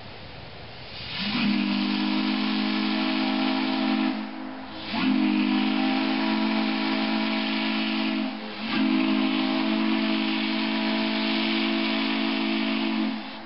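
Steam whistle blown in three long blasts of several seconds each, with short gaps between them. Each blast sounds several low tones at once over a hiss of escaping steam.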